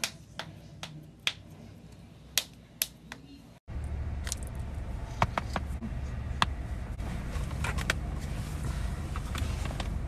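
Knuckles cracking: a handful of sharp, separate pops, about five over the first three seconds. After an abrupt cut, more scattered small cracks sound over the steady low rumble of a car's interior.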